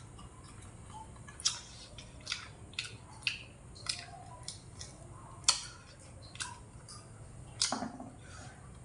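Biting and chewing on satay-fried pork spare ribs: irregular crisp clicks and crunches, about two a second, the sharpest about five and a half seconds in.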